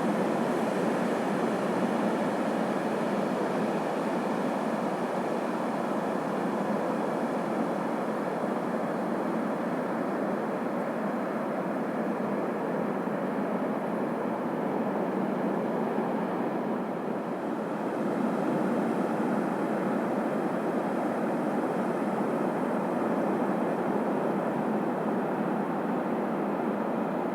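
Ocean surf on a sandy beach: a steady rush of breaking and washing waves that eases briefly about two-thirds of the way through and then swells again.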